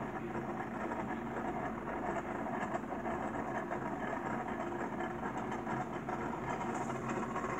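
The small 12 V DC motor and gear drive of an amber rotating emergency beacon, running with a steady hum as it turns the reflector around the fixed bulb.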